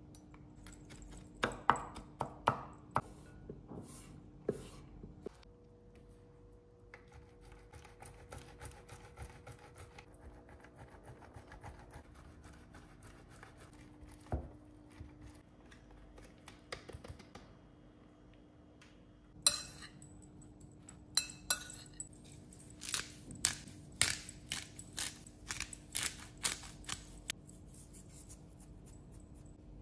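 Food-preparation sounds: a knife chopping garlic on a wooden cutting board with a few sharp knocks, then a soft, even rasp of cheese being grated on a metal grater. Near the end a metal spoon clinks repeatedly against a glass mixing bowl as the diced vegetables are stirred.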